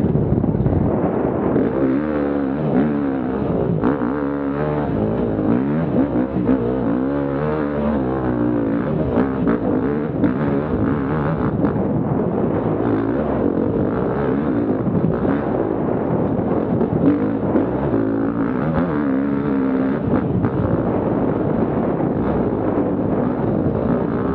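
Enduro motorcycle engine heard up close from the bike, its pitch rising and falling over and over as the throttle is worked on and off.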